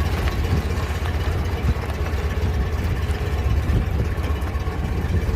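Steyr-Puch Haflinger's air-cooled flat-twin engine running steadily as the little 4x4 drives along a rough farm track, with a few short knocks from the vehicle.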